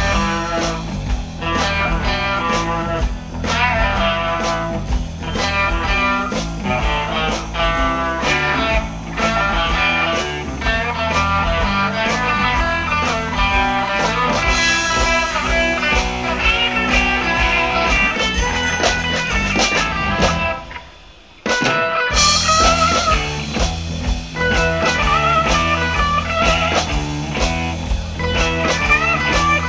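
Live blues band playing an instrumental section: electric guitar lead with bent notes over bass, drums and rhythm guitar. The band drops out for about a second two-thirds of the way through, then comes back in.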